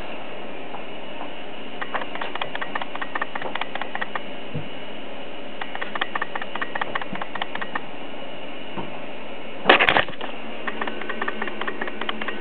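Steady hiss with spells of light rustling and crackling clicks, and one brief louder scuffing bump just before ten seconds in.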